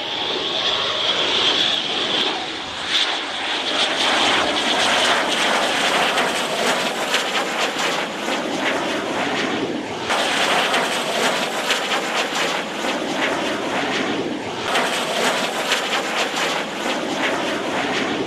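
AIDC T-5 Brave Eagle jet trainer's twin F124 turbofan engines on a low landing approach. A high whine over the first few seconds fades into a steady rushing jet noise with a rough crackle.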